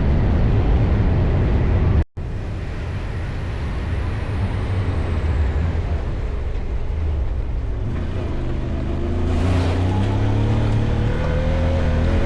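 A side-by-side off-road buggy's engine runs under way, with a steady low rumble. The sound cuts out for a moment about two seconds in. A higher engine note builds over the rumble from about eight seconds.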